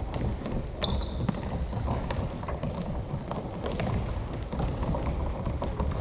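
Futsal play on a hard gym court: scattered ball thuds and footfalls over a low rumble, with a brief shoe squeak about a second in.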